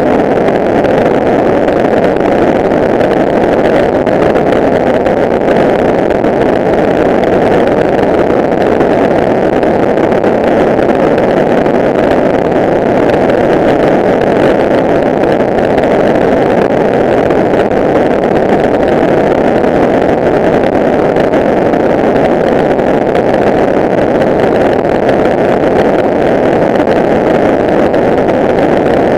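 Kawasaki ER-6n motorcycle cruising at steady highway speed: its parallel-twin engine's drone mixed with wind and road noise, loud and unchanging.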